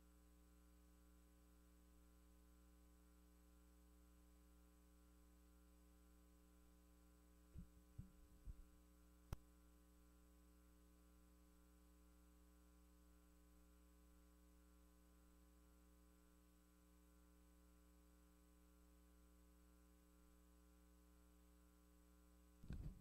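Near silence with a faint, steady electrical mains hum, broken by a few soft knocks and a single sharp click about a third of the way through.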